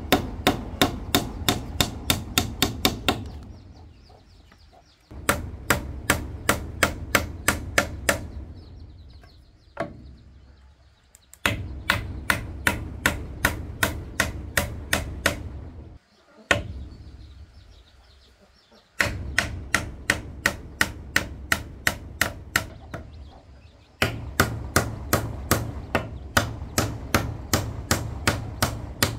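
Rapid, even blows of a hand tool striking wood, about four a second, in several runs of a few seconds broken by short pauses.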